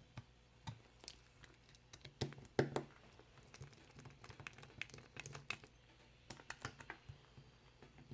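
Small irregular metal clicks and taps as the tailpiece is worked off the back of a Schlage Primus lock cylinder, the loudest cluster about two and a half seconds in.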